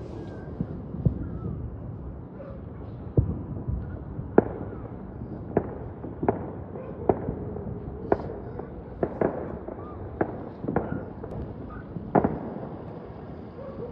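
Fireworks going off: a string of sharp pops and bangs at uneven intervals, roughly one a second.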